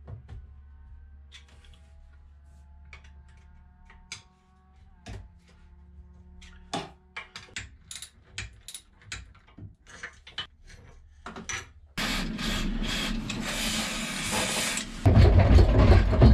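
Hand tools clicking, knocking and scraping on a sailboat's metal rudder quadrant and steering fittings as they are undone, with faint squeaks. About twelve seconds in, a steadier rushing noise takes over and gets louder about three seconds later.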